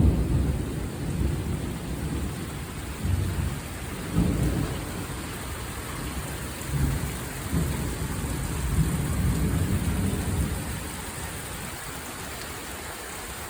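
Thunder rumbling in a series of low rolls that swell and fade, dying away after about ten seconds, over steady rain.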